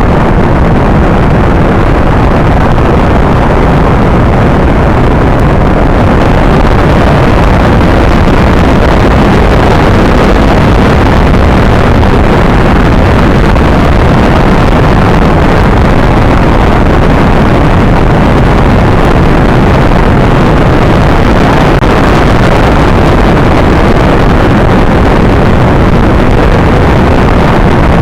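Space rocket engine sound effect: a very loud, steady rush of noise, heaviest in the low end, with no change in pitch or level.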